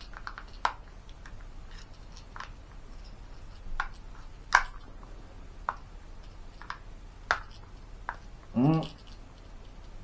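Sharp metallic clicks and clacks of a C96 cap-firing model pistol's action being worked by hand: about nine separate clicks at uneven intervals, the loudest about halfway through.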